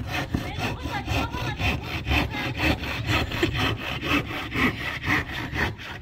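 Hand saw cutting through a wooden board in quick, even back-and-forth strokes, about four to five a second.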